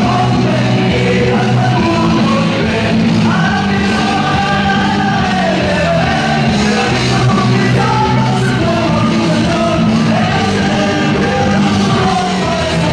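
Loud dance music with a singing voice over a steady bass line, played over a DJ's sound system in a packed hall.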